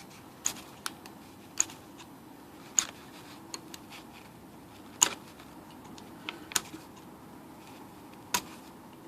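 Irregular sharp clicks and snaps as an X-Acto knife shaves the edges off a Smith Corona's plastic ribbon-spool shaft, about nine in all, the loudest about five seconds in.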